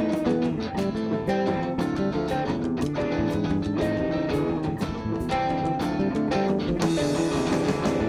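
Live band playing an instrumental passage led by guitar over a steady beat.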